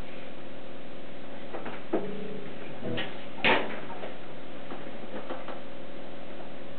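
Sparse improvised playing by a small band of keyboard, electric guitar and percussion: a steady held drone under scattered ticks and knocks and a few short notes, with one louder struck hit that rings on about three and a half seconds in.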